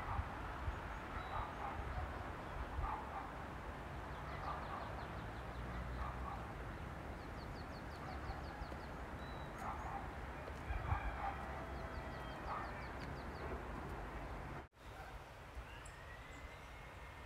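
Outdoor rural ambience: distant animal calls repeating every second or so and a few short, high, rapid trills over a low rumble. About three-quarters through, the sound cuts and turns quieter.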